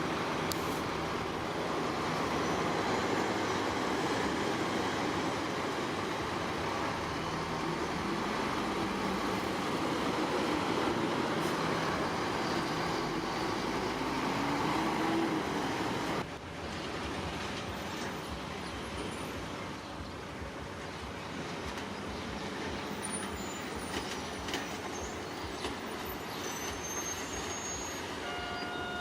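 Heavy diesel earthmoving machinery running steadily under load. The sound drops abruptly just over halfway through and carries on more quietly.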